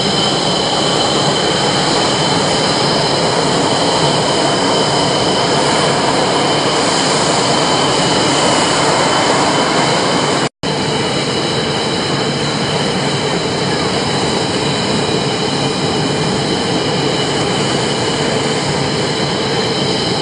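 Aircraft turbine engine running steadily up close: a loud rushing noise with a constant high whine, briefly cut to silence about ten seconds in.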